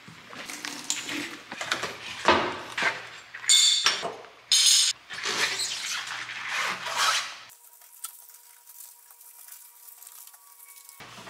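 Household items clattering and clinking as they are handled during cleaning, a quick run of knocks and scrapes with two sharp high-pitched clinks near the middle. It drops to a much quieter stretch for the last few seconds.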